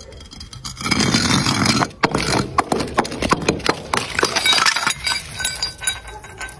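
A full glass bottle rolling down concrete steps, knocking and clinking against each step from about a second in, then shattering, with glass and its contents scattering over the concrete.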